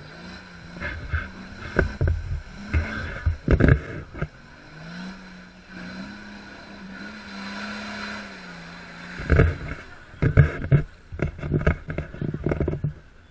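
Off-road 4x4 SUV's engine running hard at steady revs as it drives through a mud pool with its wheels churning mud. Loud irregular thumps come in two clusters, early and again from about two-thirds of the way in.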